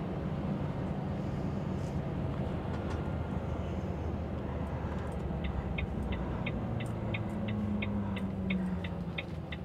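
Lorry engine running, heard from inside the cab, with the turn-signal indicator starting to click steadily about five seconds in, about three clicks a second.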